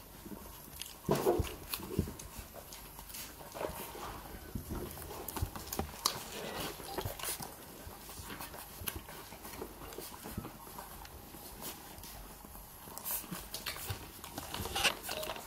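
Puppies suckling from their mother dog: irregular wet smacking and clicking of nursing mouths, with a few louder moments about a second in and near the end.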